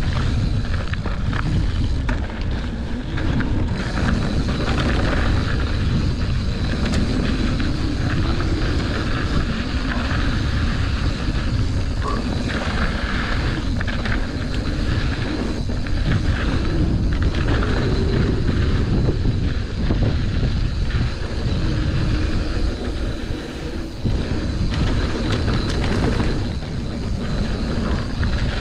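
Mountain bike riding down a dirt flow trail: steady wind rush on the microphone and tyre noise, broken by frequent short rattles and knocks over bumps.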